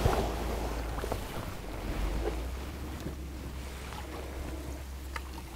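Wooden oar strokes through calm water from a small rowboat, with a few light clicks, over a steady low wind rumble on the microphone.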